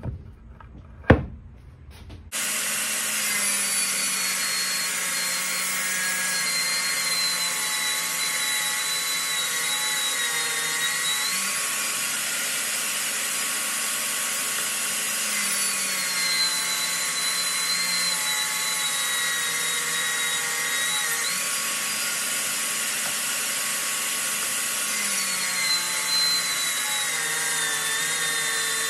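A few sharp wooden knocks from hardwood boards being handled, then a Milwaukee M18 FUEL brushless cordless table saw starts running and rips through a glued-up hardwood cutting-board blank. Its motor whine sags in pitch three times as the blade is loaded by a cut and springs back up as each cut finishes.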